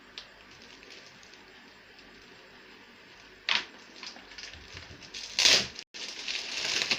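A band being pulled off a cardboard speaker box and the packaging handled: a short scrape about halfway through, a louder rustle about two seconds later, then steady crinkling.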